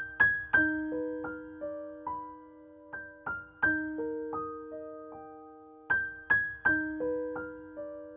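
Background music: a soft piano melody of single notes struck and left to ring out, a short phrase returning about every three seconds.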